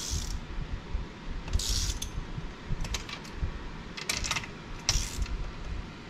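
Ratchet wrench clicking in about five short bursts, roughly one a second, as it is swung back and forth on a spark plug in a BMW HP4 Race cylinder head. The plug is seized in its threads.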